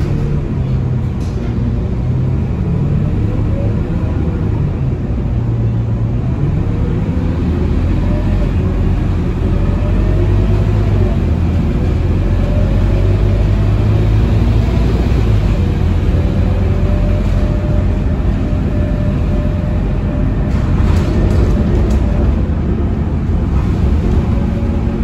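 Interior of a Scania K230UB Euro 5 bus under way, its five-cylinder 9-litre diesel engine and drivetrain running with a steady low drone. The engine pitch rises and shifts as the bus picks up speed, over constant tyre and road noise, with a few light rattles from the cabin near the end.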